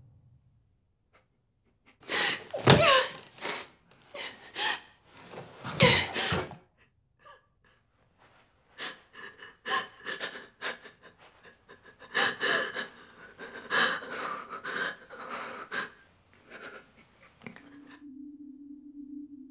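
A person gasping and panting: a few loud, heavy breaths after a brief hush, then a run of shorter, choppier breaths. A steady low tone comes in near the end.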